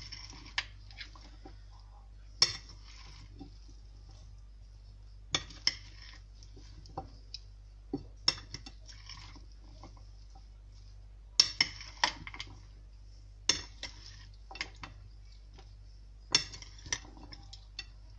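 Two metal spoons tossing a salad in a ceramic bowl: irregular sharp clinks of spoon against bowl, a few close together, with the soft rustle of lettuce and vegetables between them.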